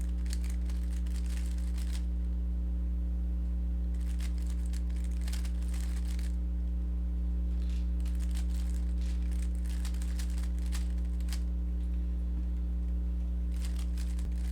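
A Rubik's cube being turned quickly in the hands: rapid clicking of the layers in several runs of a few seconds each, with short pauses between. A steady low electrical hum runs underneath throughout.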